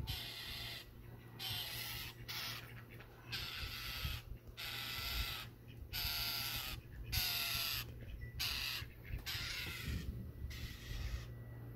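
Northern mockingbird giving harsh, rasping scold calls, repeated about once a second: territorial alarm calls aimed at a cat close by.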